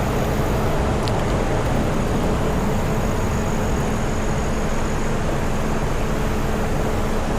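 Steady rushing noise with a faint low hum underneath and a few light ticks.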